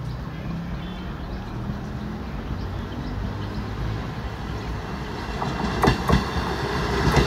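ICF-built electric multiple unit local train approaching, its low motor hum and wheel rumble growing louder as it nears. Near the end its wheels clack sharply over rail joints a few times.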